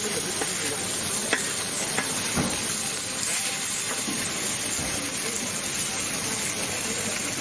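Pork chorizo sausages and eggs sizzling on a hot flat-top griddle in a steady hiss, with a metal scraper scraping across the griddle and a few sharp metal clicks from the scraper and tongs.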